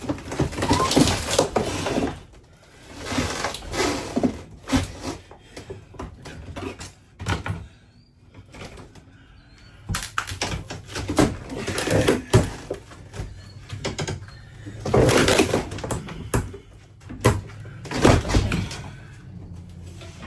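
Porcelain toilet being broken up: repeated bursts of crashing and cracking, with sharp knocks between them.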